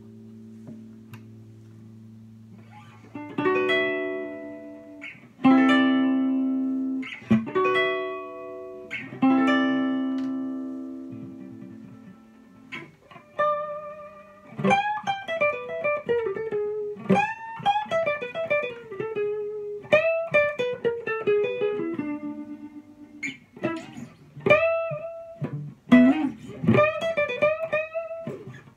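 1962 Framus New Sound semi-hollow electric guitar played through an amplifier in a blues/jazz improvisation. A chord rings and fades, then a few struck chords are left to ring. From about halfway it moves to a quicker single-note lead line with bent notes.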